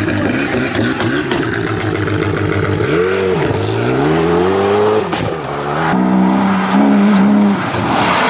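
Renault Mégane rally car's engine at full throttle through a corner, its revs dropping and climbing again about three seconds in, then rising in a long sweep as it pulls away. About six seconds in, a BMW E30's engine takes over, held at steady high revs and stepping up as the car drifts.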